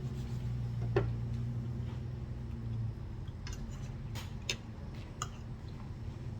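Light clicks and taps of tableware during a meal, one about a second in and a quick cluster of about five between three and five seconds in, over a steady low hum.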